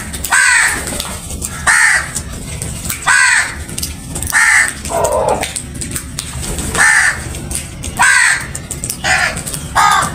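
Crows cawing over and over, about nine harsh caws roughly a second apart, one lower-pitched caw near the middle.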